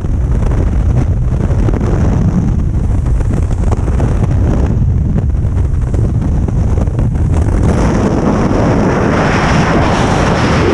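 Loud wind rushing over a camera microphone during skydiving freefall, a steady buffeting rush. About eight seconds in it turns hissier and brighter.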